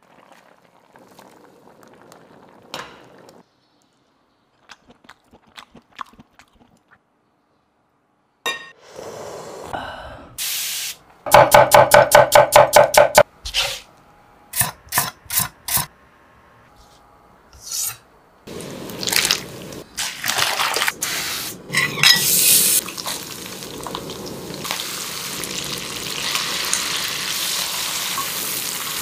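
A knife quickly slicing a potato on a wooden cutting board, about a dozen sharp chops in two seconds, amid scattered taps of kitchen work. In the last third, potatoes stir-frying in a wok: a steady sizzle with spatula scrapes on top.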